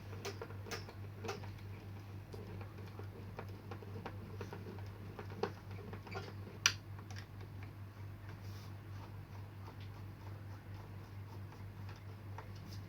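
Scattered light clicks and taps of screws and a screwdriver on an LCD TV's back cover as its screws are put back in, with one sharper click about seven seconds in, over a steady low hum.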